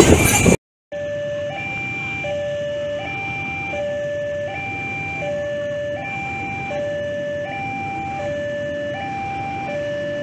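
Railway level-crossing warning signal sounding: an electronic two-tone alarm that swaps between a lower and a higher tone about every 0.7 seconds, warning of an approaching train.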